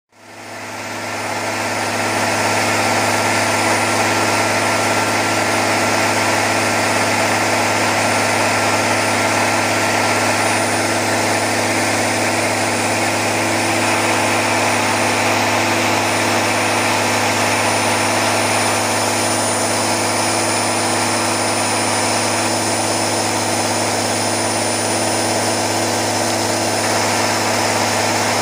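Niigata (now IHI Power Systems) 13.3-litre turbocharged, intercooled railcar diesel engine, as fitted to JR Hokkaido KiHa 201/261 units, running steadily on a test stand. A thin, high turbocharger whine sits over the engine's low hum. The sound fades in over the first couple of seconds, then holds level.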